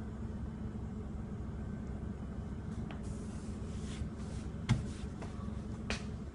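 Steady low hum of a small indoor room, with a few light knocks or clicks. The loudest knock comes about three-quarters of the way through and another follows about a second later.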